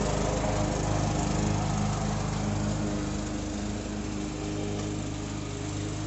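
Petrol walk-behind lawn mower engine running steadily, growing a little quieter after a couple of seconds as the mower moves away.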